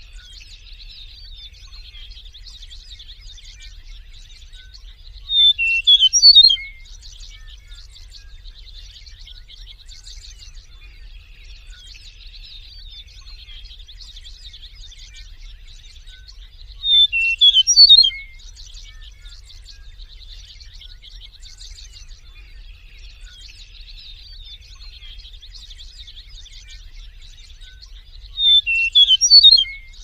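Eastern meadowlark singing its short whistled song three times, about eleven seconds apart, over a steady faint chatter of high chirps.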